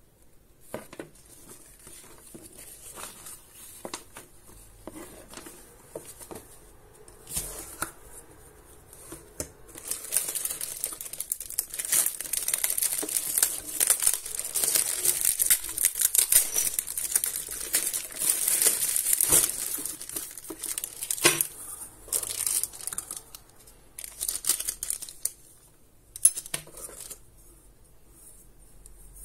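Clear plastic packaging bags holding bolts and mount parts crinkling and rustling as they are handled in a cardboard box. Soft scattered rustles build after a few seconds into a long, loud stretch of crinkling, with one sharp knock about two-thirds of the way through, then a few smaller rustles.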